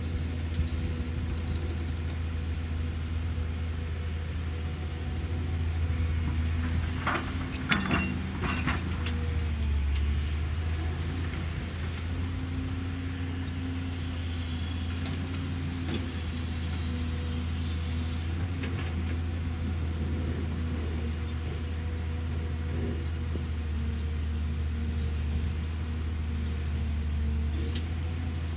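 Cat excavator's diesel engine running steadily, with a few sharp metallic clanks about seven to nine seconds in.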